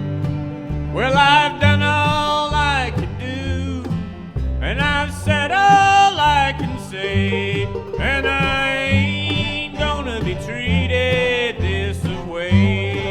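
Bluegrass band playing an instrumental break, led by a bowed melody with sliding notes over a steady upright bass, guitar and banjo.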